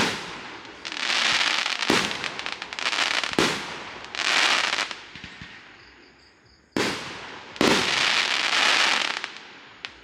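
Aerial fireworks going off: sharp bangs each followed by a long crackling hiss, several in quick succession, with a lull about five seconds in before two more bangs and another long crackle.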